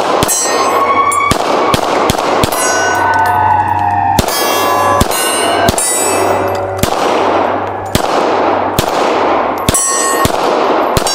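A Hudson H9 9mm pistol fired in a steady string of shots, roughly every half second to second, at close steel targets. Each shot is followed by the ringing clang of a struck steel plate.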